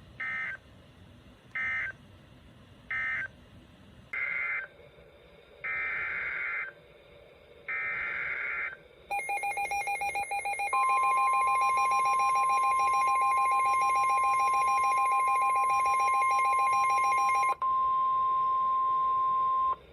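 EAS/SAME digital data bursts, heard as a harsh buzzing screech: three short ones, then three longer ones about a second apart, the end-of-message code of one warning and the header of the next. About nine seconds in, an alert tone starts: a pulsing beep, soon joined by a steady high tone. The beep stops shortly before the steady tone cuts off at the end.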